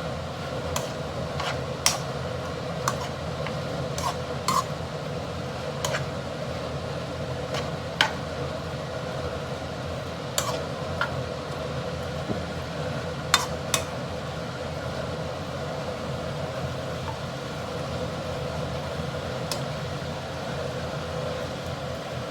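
Stir-frying in a pan: a cooking utensil clinking and knocking against the pan at irregular moments, over a steady background noise. The clinks come thickest in the first half and grow sparse after that.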